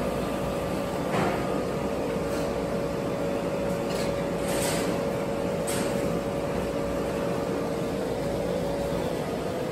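Steady machinery hum with two close steady tones, with a few brief rustles as paper and a plastic bag are handled on a steel counter.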